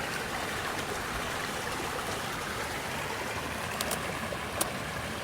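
A steady rushing hiss with two short, faint clicks near the end.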